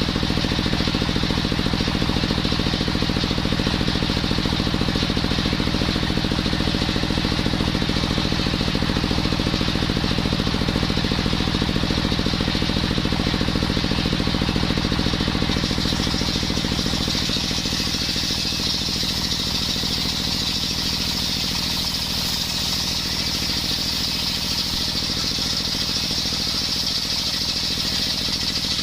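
Brush-cutter engine running steadily with a circular saw blade fitted, sawing coconut wood; a high whine grows stronger about halfway through.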